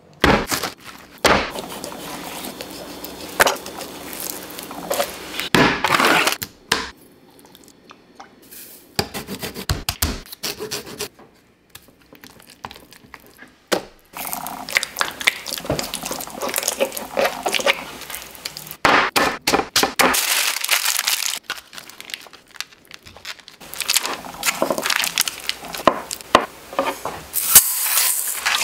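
Food-preparation sounds: a string of knocks, thuds and rubbing noises as ingredients and cookware are handled on a wooden table. Several short quiet gaps break the run.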